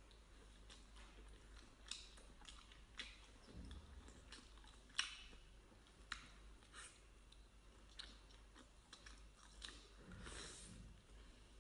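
Faint close-up chewing of food, with scattered wet mouth clicks and soft crunches, one sharper click about five seconds in.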